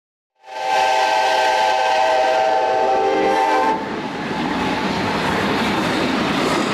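AI-generated sound effect of a freight train: a train horn sounds a chord of several steady tones for about three seconds. It then gives way to the steady rumble and clatter of the train rolling past.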